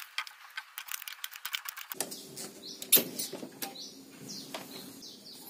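Rapid crackling clicks of hot solder and flux under a soldering iron tip as the horizontal output transistor is desoldered from the circuit board, stopping about two seconds in. A single sharp click follows a little before the three-second mark, and faint bird chirps come in the second half.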